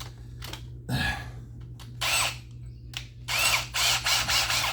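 Power drill with a step bit cutting into a steel plate, run in about five short bursts with the motor spinning up and down between them. The bit is catching as it nears breaking through.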